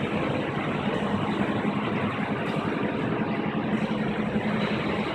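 Steady mechanical hum over an even rushing noise, unchanging throughout.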